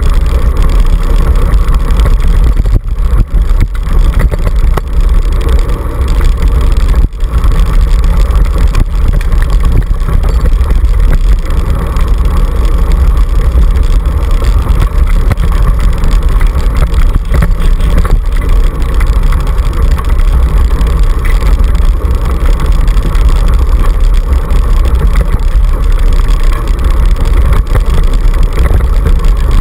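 Loud, steady rumble of a two-dog scooter rolling fast over a dirt track, heard through the handlebar-mounted camera with wind and road vibration on the microphone.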